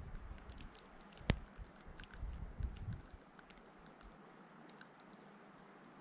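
Snowstorm wind buffeting the microphone in low rumbling gusts that ease off about halfway through, with scattered light ticks and one sharper click about a second in.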